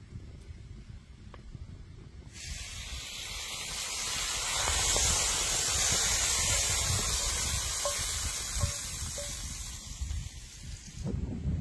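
Hot potatoes and cherry tomatoes sizzling in and out of a cast-iron skillet, a loud hiss that starts about two seconds in, swells, then eases and cuts off abruptly near the end.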